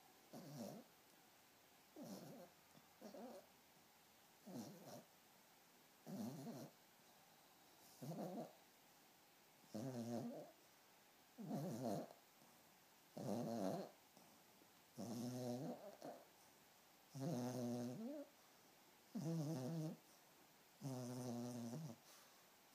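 Pomeranian puppy snoring in a regular rhythm, one snore about every two seconds. The snores grow longer and louder from about halfway through.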